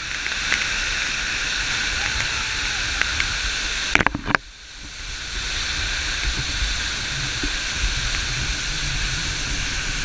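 Waterfall: falling water making a steady rushing noise. About four seconds in come a few sharp knocks and a brief drop in level, then the rush builds back up.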